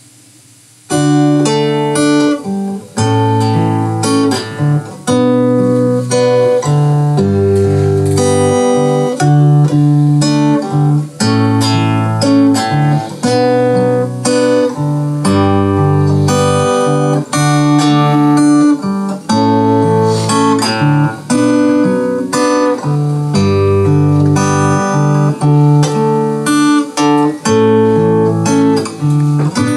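Solo acoustic guitar playing strummed chords, the intro of a song reworked for a single guitar, starting about a second in.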